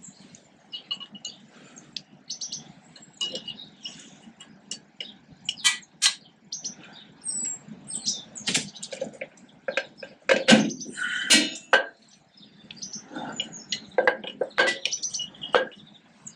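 Irregular metallic clinks, scrapes and rattles as steel brake shoes and their return springs are worked into place by hand on a 1955 Fordson Major tractor's brake backplate. The loudest knocks come about ten to eleven seconds in.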